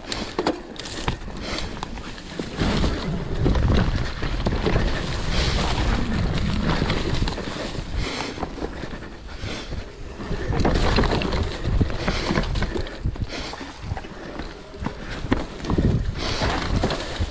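Wind buffeting the microphone while riding a mountain bike on a dirt trail, with a low rumble that swells and fades and frequent short knocks and rattles from the bike over bumps.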